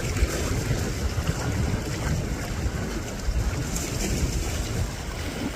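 Wind buffeting the microphone outdoors by open water: a steady, gusty low rumble.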